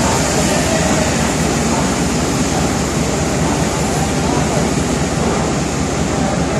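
Steam-hauled train moving, a steady, loud rail noise without pauses, with people's voices mixed in.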